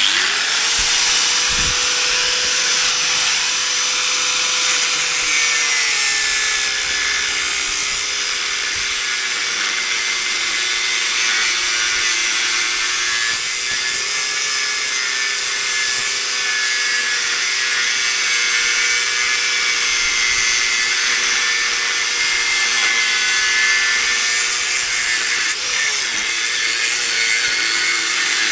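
Angle grinder spinning up and cutting through the nut welded onto a steel pivot bolt. Its whine drops a little in pitch about six seconds in as the disc bites and wavers with the load, over a continuous harsh hiss.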